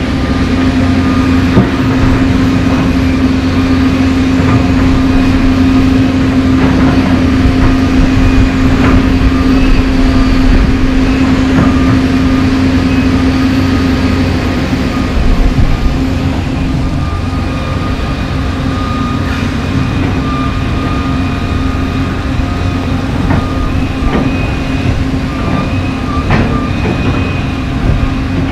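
John Deere 350D LC excavator's diesel engine running steadily with a thin higher whine over it, the engine tone easing about halfway through. Scattered knocks and scrapes as the bucket works broken asphalt slabs.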